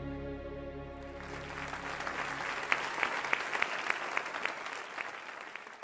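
The final held chord of a slow ballad's accompaniment dies away, and audience applause breaks in about a second in, with sharp individual claps standing out, thinning near the end.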